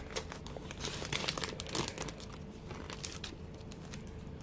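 Packaging crinkling and rustling as it is handled, with dense crackles in the first two seconds and then sparser ticks.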